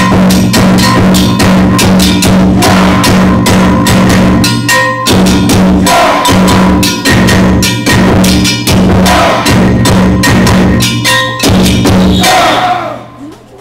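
Festival float's taiko drums and a ringing metal gong beaten in a fast, driving rhythm. They stop shortly before the end.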